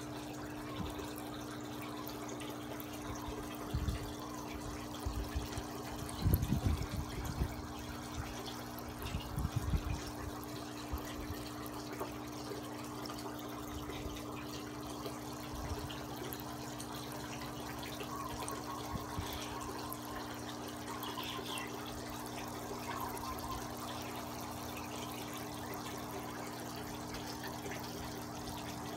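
Water trickling steadily into a small planted fish pond, with a low steady hum under it. A few low bumps come about 4 seconds in, around 6 to 7 seconds, and around 9 to 10 seconds.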